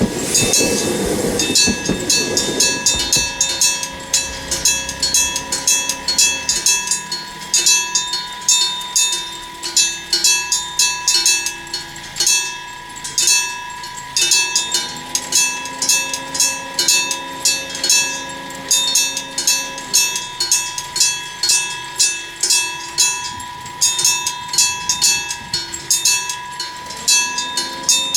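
Electric level-crossing bell ringing, its hammer striking the bell about twice a second in a slightly uneven rhythm, with the odd missed or irregular stroke. A train rumbles and clatters past in the first few seconds. The crossing keeps ringing after the train has gone, as it does at this crossing until the opposing train crossing at Onoe station has passed.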